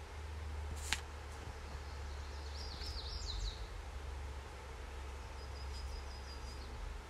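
Outdoor lakeside ambience: a steady low rumble with a bird calling about three seconds in, a quick run of high falling notes, and later a faint thin high whistle. A single sharp click sounds just before a second in.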